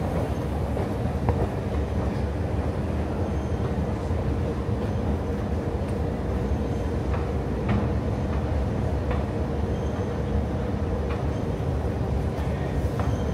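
Sydney Metro train running underground: a steady rumble with a faint steady hum over it and a few light ticks.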